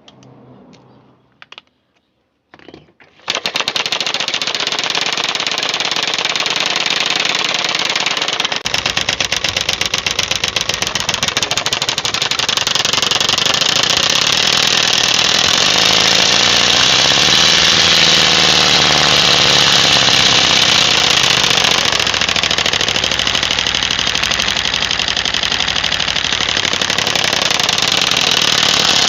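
PET plastic bottle wired to a bicycle frame, flicked by the spokes of the turning wheel, making a fast continuous clatter meant to imitate a motorcycle engine. It starts suddenly about three seconds in and grows fuller a few seconds later.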